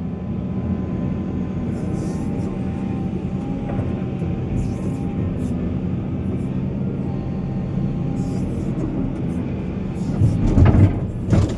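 Heavy diesel engine of a mining excavator or dump truck running steadily, with loud clattering bursts near the end.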